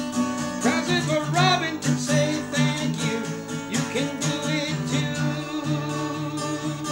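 Acoustic guitar strummed in steady chords while a man and a woman sing a gospel song together.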